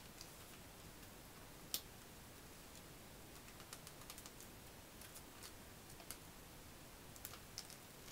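Stiff paper creasing and crinkling in the hands as a cut pop-up card is folded into shape: faint scattered sharp clicks, the loudest about two seconds in, over a low hiss.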